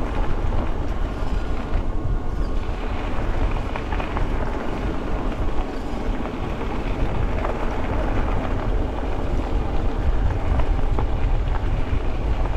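Wind rumbling on the microphone over the rolling noise of an e-bike riding along a trail: a steady, fluttering low rush with a few faint ticks.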